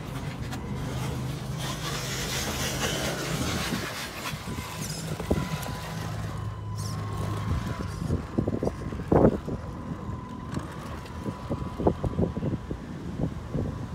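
Hobao DC1 RC rock crawler's small electric motor and gears running as it climbs loose red dirt, with a steady low hum early on giving way to tyres scrabbling and crunching over dirt and stones. From about eight seconds in come many short, sharp crunches and knocks, the loudest just after nine seconds.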